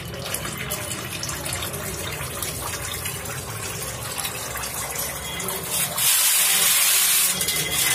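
Used engine oil draining in a thin stream from the car's sump into a drum of waste oil, a steady splashing pour that grows much louder for about a second near the end.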